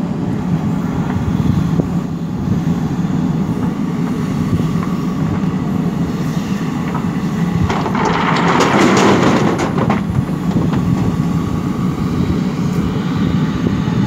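JCB 3DX backhoe loader's diesel engine running steadily under hydraulic load. About eight seconds in, stones and soil pour from the bucket into the tractor's steel trolley with a rushing clatter lasting about two seconds, the loudest part.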